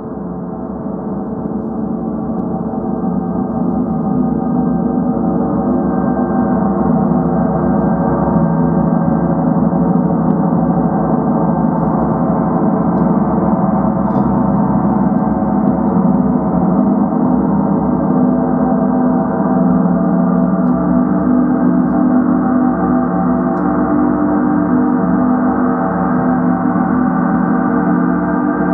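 Several large gongs hung on stands, played continuously with mallets into a dense, steady wash of many overlapping ringing tones. The sound swells over the first few seconds and then holds level.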